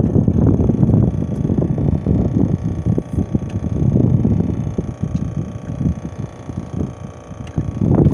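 Gusty wind buffeting the microphone: rough, rumbling noise that swells and dips, easing off for a moment a little before the end.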